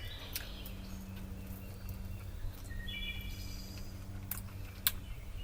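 Person chewing a crunchy, crispy fried pizza bite, with a few sharp crunches over a steady low hum.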